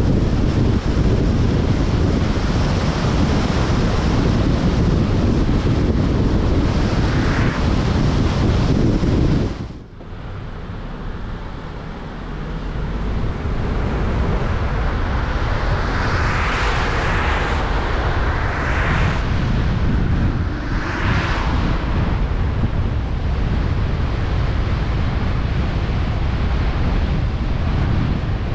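Wind rushing over a car-mounted microphone with tyre noise on a wet road, a steady loud rushing. About ten seconds in it drops away sharply and builds back up over a few seconds, with a few brief swells of louder hiss midway.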